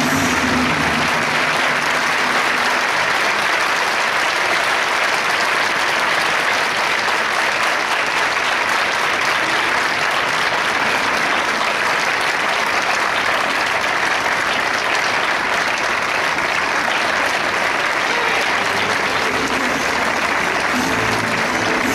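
Large crowd applauding steadily. The dance music fades out in the first second or two, and new music starts near the end.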